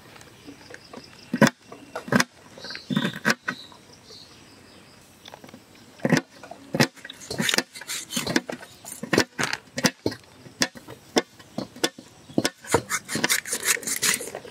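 Raw chicken being skinned and cut on a boti, a curved blade fixed upright on a stand: irregular sharp clicks and wet tearing and slapping of flesh, a few at first, then coming thick and fast from about six seconds in.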